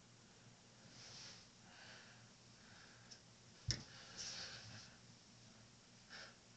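Soft rustling of a homemade fursuit mask being moved and handled, over a low steady hum. A single sharp knock a little past halfway is the loudest sound, with a few more faint rustles after it.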